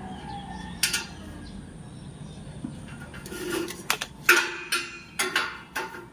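Light metallic clicks and knocks from a steel tube being handled and measured on a tiled floor, one about a second in and a quick run of them in the second half.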